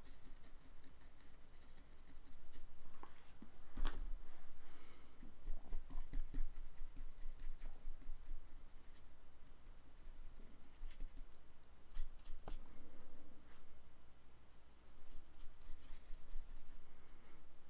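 Soft, irregular strokes of a drawing tool rubbing and scratching on paper, with a few sharp taps: the loudest about four seconds in and two close together around twelve seconds.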